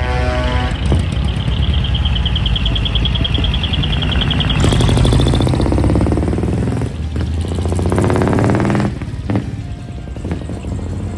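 Dekotora trucks pulling away one after another, their diesel engines revving. A high warbling tone runs through the first few seconds. About halfway through, a loud hiss starts suddenly over the revving engine and stops near the end, where it drops to a lower rumble.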